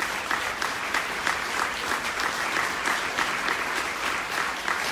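Audience applauding: many people clapping at once, dense and steady.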